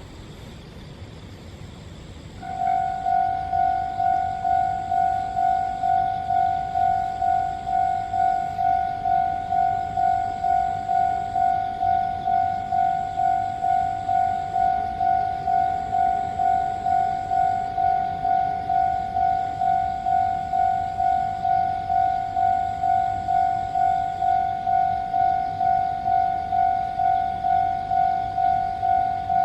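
Japanese railway level-crossing warning bell starting up about two and a half seconds in and ringing on evenly, a repeated electronic clang about twice a second, the signal that a train is approaching. A low background rumble lies underneath.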